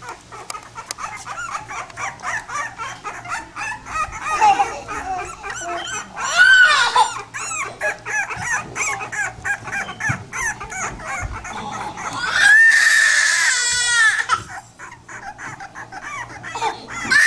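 A litter of young pitbull puppies whining and squeaking over and over in short, high-pitched cries, with one longer, held cry about three-quarters of the way through.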